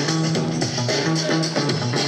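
Music with a steady beat and a repeating bass line.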